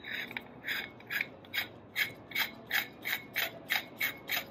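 Threaded C-mount to 1.25" filter adapter being screwed by hand onto the eVscope's camera mount at the centre of the spider, its threads clicking in an even run of about three clicks a second.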